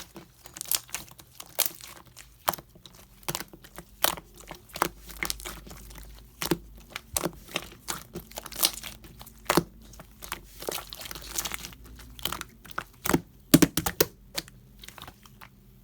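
Clear slime being squeezed and worked by hand, giving irregular sticky pops and crackles, several a second, that thin out near the end.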